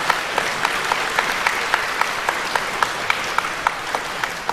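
Audience applauding in a concert hall, with one clapper near the microphone standing out at a steady beat of about four claps a second.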